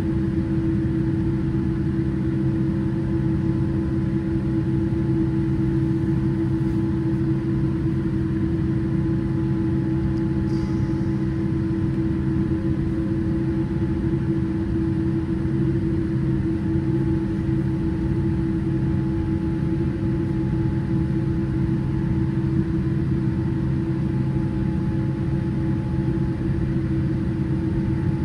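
Cabin noise of a Boeing 787-8 taxiing, its GE GEnx engines at idle: a steady low hum with a held drone tone and no change in power.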